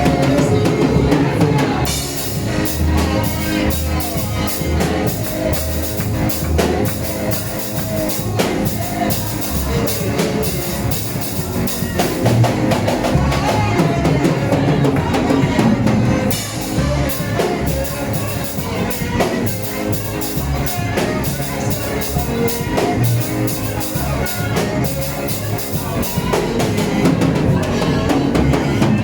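Church band music with a drum kit keeping a steady beat over a moving bass line.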